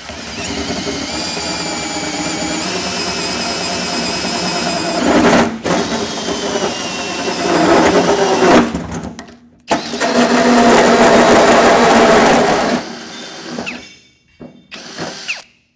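Cordless drill turning a hole saw through the metal truck-bed floor, running in long stretches with short stops about five and a half and nine and a half seconds in, then a few short bursts near the end as the cut is finished.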